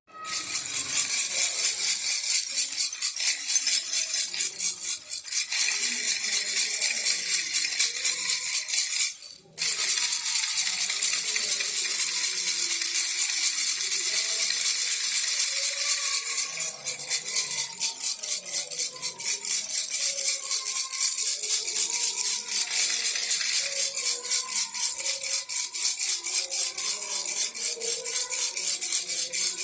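Baby rattle shaken rapidly and continuously, a dense high-pitched rattle of small beads, with a brief stop about nine seconds in before the shaking resumes.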